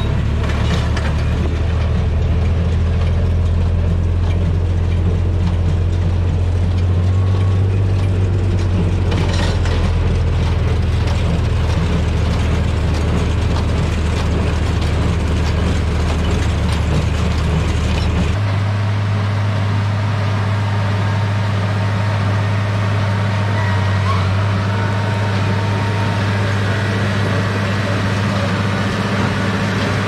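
Case IH Maxxum 125 tractor's diesel engine running steadily under load, pulling a New Holland BC5070 small square baler whose mechanism is working as it bales straw. The low drone changes abruptly about eighteen seconds in.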